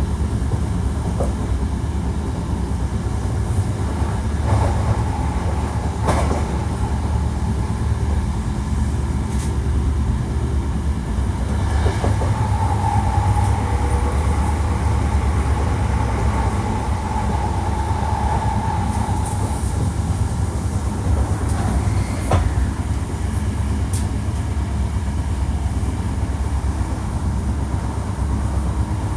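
Hankyu 1300 series electric train running at speed, heard from inside the car: a steady rumble of wheels on rail with a few sharp rail-joint clicks. About twelve seconds in, a steady high whine comes in and holds for several seconds.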